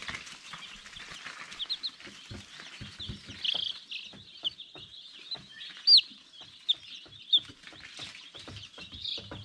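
Young chicks peeping: many short high cheeps, with a few louder ones about six and seven seconds in, over scattered light ticks and rustles.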